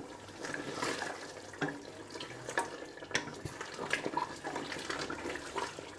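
Wooden spatula stirring thick beef korma in a stainless steel pot: wet sloshing of the gravy with irregular scrapes and taps of the spatula against the pot.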